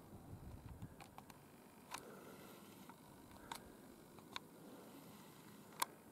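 Near silence with scattered faint clicks, about one every second or so; the sharpest comes near the end.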